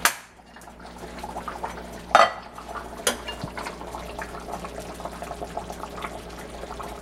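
Large metal spoon stirring and scraping freshly cooked white rice in a metal pot, with light clinks against the pot. A sharp metal clank about two seconds in and a smaller click about a second later.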